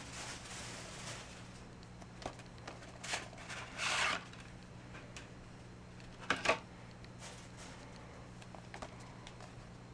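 A plastic Blu-ray case and its packaging being handled, with scattered light clicks and rustles, a short rustle about four seconds in, and two sharp clicks a little after six seconds. A faint steady hum runs underneath.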